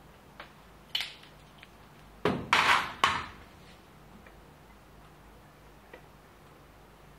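Metal hand tools being handled and set down on a wooden workbench: a few light clicks, then a loud clatter of knocks about two seconds in, then faint handling ticks.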